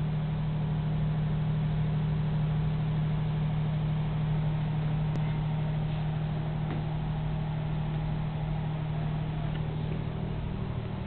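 Steady low mechanical hum that does not change, with a few faint clicks about halfway through.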